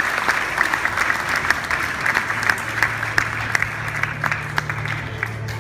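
Audience applauding, a dense patter of many hands clapping that thins slightly toward the end. A low steady drone comes in a little over two seconds in.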